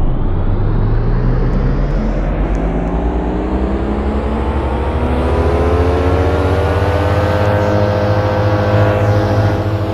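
CFC Fan CO Electric split air conditioner starting up: a motor whine rising slowly in pitch and then levelling off, over a steady low hum.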